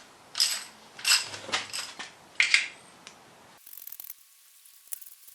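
Sharp metallic clinks of a socket set and steel bolts, four or five in the first three seconds. Then, after an abrupt change, the faint rapid clicking of a socket ratchet undoing the bell housing bolts.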